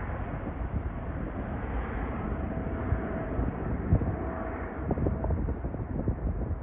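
Boeing 777-300ER's twin GE90-115B turbofans under departure thrust: a dense steady rumble with irregular crackling and a faint steady whine.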